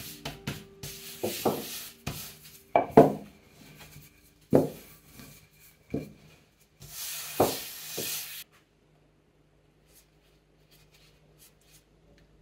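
Wooden rolling pin rolling out a thin round of dough on a countertop: a rubbing noise with several sharp knocks of the pin against the counter, stopping about eight seconds in.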